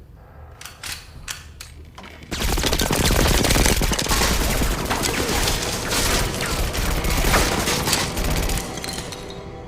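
Film gunfire: a few single shots in the first two seconds, then a long, dense volley of rapid gunfire lasting about six seconds, tailing off near the end.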